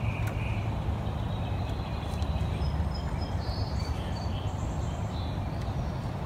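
Steady low background rumble with faint bird chirps, and a couple of light clicks as the timing chain and cam sprocket are handled.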